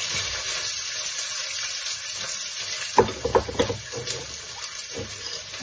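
Sliced onions frying in oil in a cooking pot with a steady sizzle as lentils are added. A few short clatters come about three seconds in and once more near the end.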